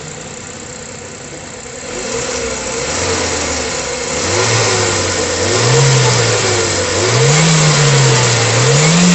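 Ford Fiesta Zetec engine running, freshly rebuilt with new timing-chain tensioners. It idles steadily at first, then is revved up and down repeatedly, the pitch rising and falling about every second and a half.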